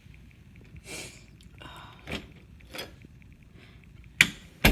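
Handling noises: a few brief rustles, then two sharp knocks about half a second apart near the end.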